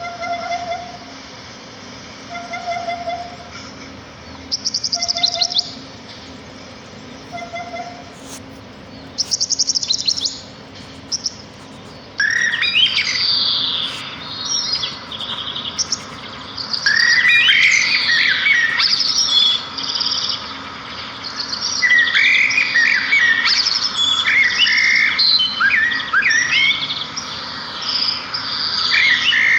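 Small songbirds chirping and singing. At first a short, lower call repeats about every two and a half seconds, with a couple of brief high trills. About twelve seconds in, many birds break into a dense, louder chorus of rapid chirps that lasts to the end.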